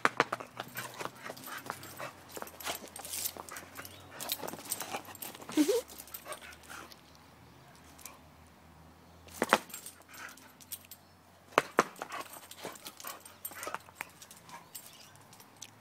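Excited American Staffordshire terrier scuffling around, with one short rising whine about five and a half seconds in, among scattered sharp clicks and knocks.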